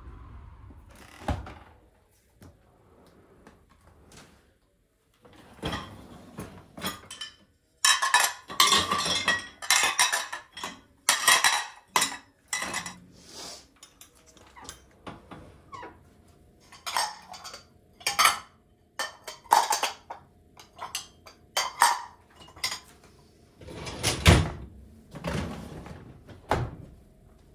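Dishes and cutlery being handled: repeated clinks and clatters of crockery and spoons, busiest about eight to twelve seconds in, with a heavier knock near the end.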